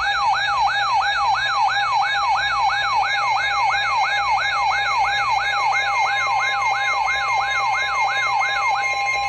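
Electronic siren tone sweeping down in pitch over and over, about three times a second, over a steady tone. Near the end the sweeps stop and only steady tones are left.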